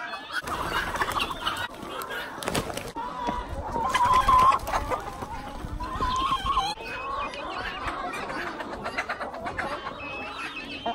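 A flock of laying hens clucking and calling, with louder drawn-out calls about four and six seconds in.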